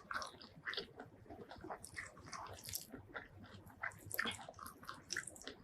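Close-miked eating: a person chewing a mouthful of food, with many short irregular wet smacks and clicks of the lips and mouth.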